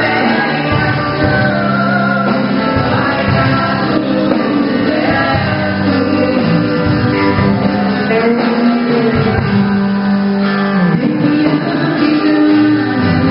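Live Christian worship music: singing with instrumental band accompaniment.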